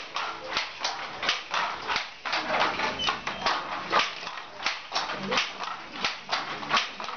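Wooden handloom clacking as it weaves: the shuttle is thrown and the beater knocks the weft home in a steady rhythm of about two to three knocks a second.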